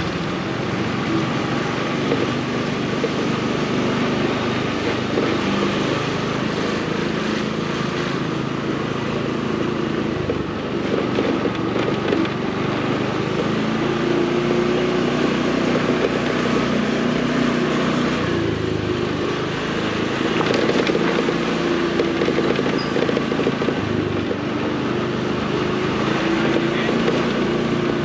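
Motorcycle engine running while riding along, its pitch rising and falling with the throttle over a continuous haze of road noise.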